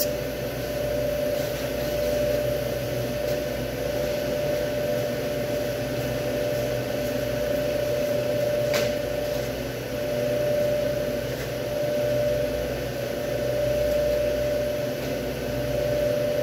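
Steady mechanical hum of room machinery with one constant mid-pitched tone running through it. A single short click about nine seconds in.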